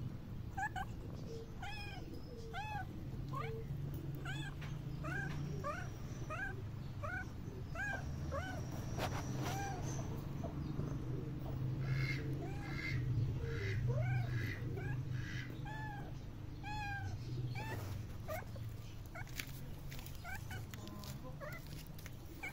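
A cat giving short meows over and over, roughly two a second, each call rising then falling in pitch, over a steady low hum.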